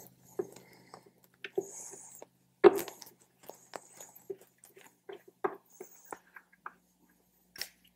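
Scattered light clicks and knocks of a T-handle Torx driver and mounting bolts being worked against a motorcycle radio's aluminium case and the surrounding fairing, with one louder knock about two and a half seconds in.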